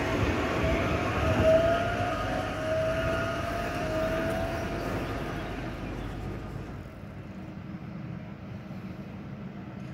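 Translohr rubber-tyred tram pulling away, its electric traction motors whining and rising slightly in pitch as it accelerates, over tyre rumble. The sound fades out about two-thirds of the way through, leaving quieter street background.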